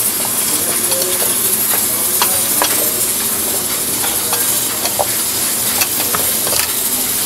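Wooden spoon stirring minced meat and diced potatoes in a hot stainless steel pan, with a steady sizzle and scattered clicks and scrapes of the spoon against the pan.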